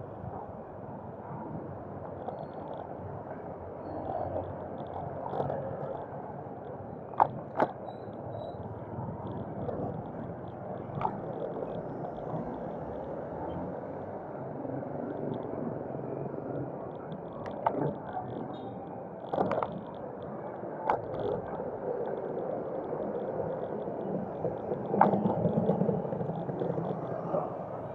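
Steady wind and road noise from riding a bicycle in traffic, with a handful of short sharp knocks scattered through it.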